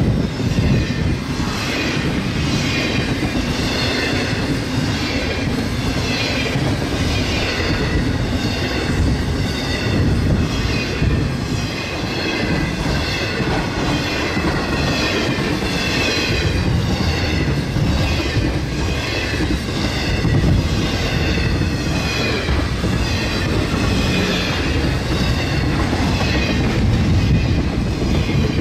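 BNSF intermodal freight train's loaded container and trailer cars rolling past close by, a steady heavy rumble and rail clatter of the wheels with a high, wavering whine over it.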